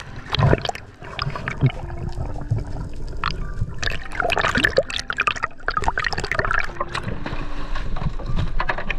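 Water splashing and sloshing at the surface as a spearfisher swims up to the boat and hauls himself and his speargun onto the stern, with many short splashes over a steady low rumble.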